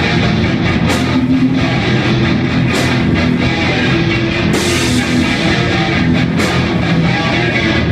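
Live rock band playing loud: electric guitar over a drum kit, with a cymbal crash about every two seconds.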